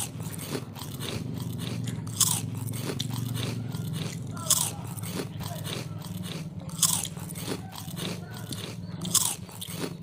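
Close-up mouth sounds of a person chewing a mouthful of rice and noodles, with a sharp mouth sound about every two seconds and small clicks between, over a steady low hum.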